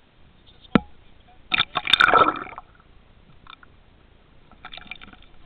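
Water splashing and sloshing around the camera as it is plunged under the surface: a sharp knock just under a second in, then a loud burst of splashing lasting about a second, with a few smaller splashes later.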